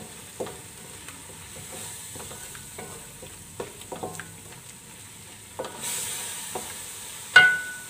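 A wooden spatula scrapes and stirs a thick onion-tomato spice masala frying in a metal pan, over a steady sizzle. The sizzle grows louder about six seconds in, and near the end the spatula knocks once, sharply, against the pan, which rings briefly.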